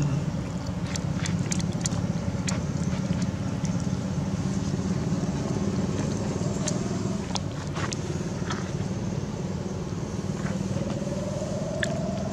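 A motor engine running steadily with a low hum, its pitch rising briefly near the end, with scattered light clicks over it.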